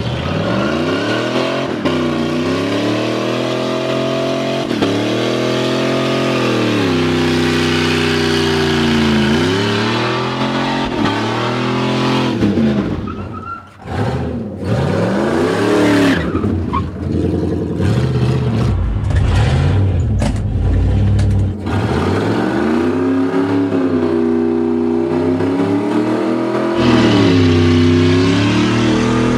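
Dodge 318 V8 in a Jeep DJ-5 postal truck revving up and down over and over during donuts and a burnout, over the hiss of spinning tires. It dips briefly about halfway through.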